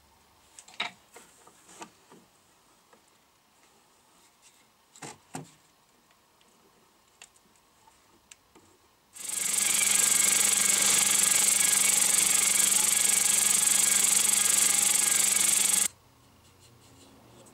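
Bench drill press motor starting about nine seconds in and running steadily at speed, spinning a CO2 cartridge held in its chuck, then stopping abruptly. Before it, a few light clicks and knocks of parts being handled on the press table.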